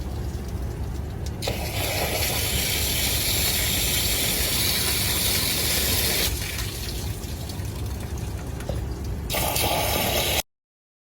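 Water running from a hose, flushing out a 1993 Chevrolet Blazer's engine block through the opening left by the removed water pump. The hiss grows stronger for several seconds, eases, swells again briefly near the end, then cuts off abruptly.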